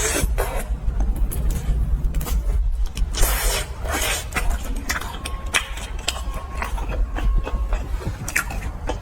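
Close-miked eating sounds: chewing and crunching of fried skewer food, with irregular crisp clicks and wet mouth noises over a low rumble.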